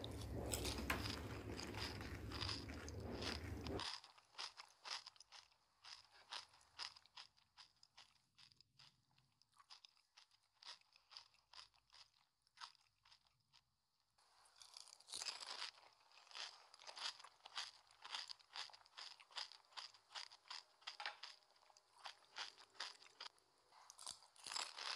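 Crisp panipuri shells crunching and being chewed, in many quick faint crunches: sparse for a while, then coming thick and fast again near the end. For the first four seconds a steady low hum runs under them, then cuts off suddenly.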